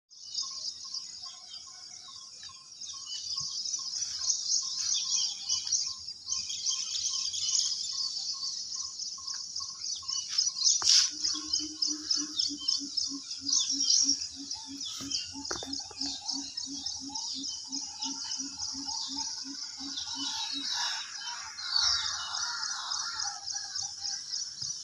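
Dense chirping of many small birds. A repeated single note sounds about two or three times a second through the first half, and a lower pulsing call, about three pulses a second, runs from around the middle until a few seconds before the end.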